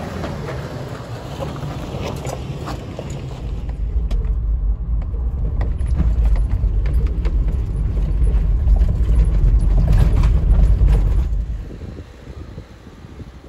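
A 2018 Toyota 4Runner TRD Off-Road driving a rocky dirt trail, with scattered clicks and knocks over a low rumble. The rumble grows much heavier a few seconds in, then drops away sharply near the end.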